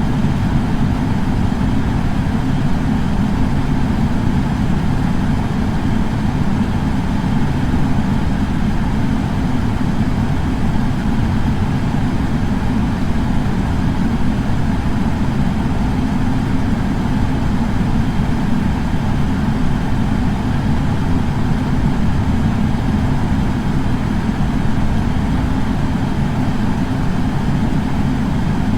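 Air purifier fan running steadily: an even, unchanging whoosh of moving air, heaviest in the low range.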